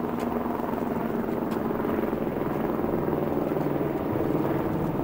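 Helicopter running steadily, a continuous engine-and-rotor drone.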